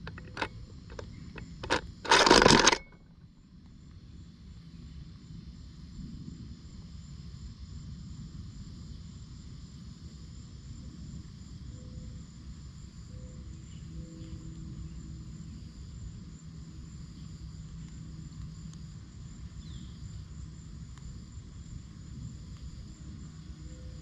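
Camera handling noise: a few clicks and then a loud rustling rub against the microphone about two seconds in as a hand moves by the lens. After that, steady outdoor background with a low rumble and a faint, constant high hum of insects.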